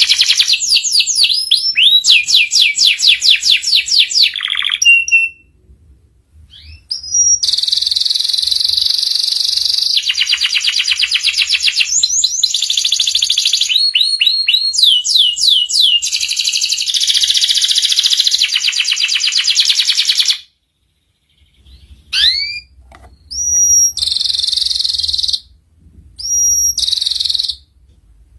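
Domestic canary singing: long, fast trills of rapidly repeated notes broken by upward-sweeping whistled notes, with a brief pause about two-thirds of the way in and shorter, choppier phrases after it.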